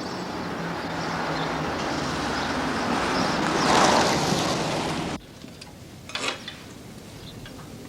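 A car driving: engine and road noise swell to a peak about four seconds in, then cut off abruptly at about five seconds. A quieter background with a brief clatter follows.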